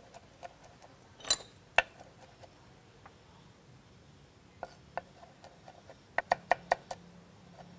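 Cleaver chopping garlic on a wooden cutting board: a few scattered taps, then a quick run of about six chops near the end.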